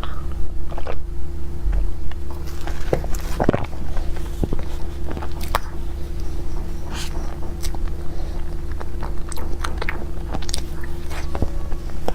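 Close-up eating of a dessert cake: chewing with irregular small clicks and crisp crunches, over a steady low hum.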